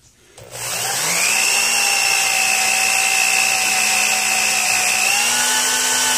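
Corded electric drill starting up about half a second in and rising to full speed, then running steadily as it bores down into the end grain of a wooden hoe handle; the pitch shifts slightly near the end as the load changes.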